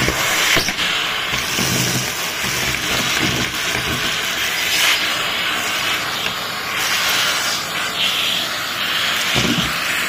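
Numatic Henry cylinder vacuum cleaner running and sucking small debris off a carpet through its hose nozzle: a loud, steady hiss of rushing air that shifts in tone as the nozzle moves.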